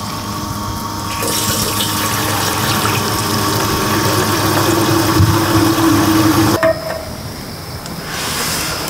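Water running steadily from a tap, stopping abruptly about six and a half seconds in.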